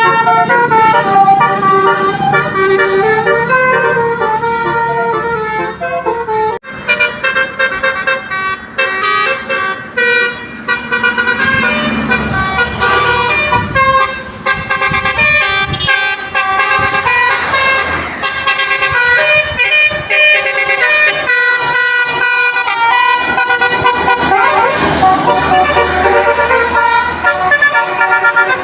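Basuri multi-tone musical horns on passing buses and cars, playing short tunes of stepped notes over traffic noise, with an abrupt break about six and a half seconds in.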